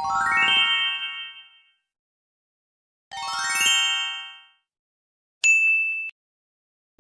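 Cute chime sound effects. A quick rising run of bright ringing notes plays twice, about three seconds apart, then a single short high ding near the end cuts off abruptly.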